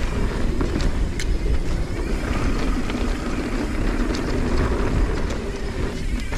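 Mountain bike rolling down a dirt trail, heard from a camera on the bike or rider: a steady rumble of tyres and wind on the microphone, with a few short clicks and rattles.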